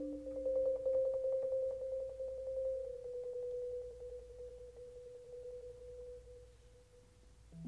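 Concert marimba played with yarn mallets: a fast tremolo roll on a single middle-register note that fades slowly away over about seven seconds. A lower rolled note comes in at the very end.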